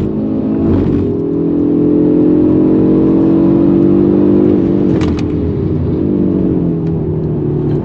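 Audi RS 3's 2.5-litre turbocharged five-cylinder engine running hard under load, heard from inside the cabin. About five seconds in the note dips, with a short crack, then carries on at a slightly lower pitch.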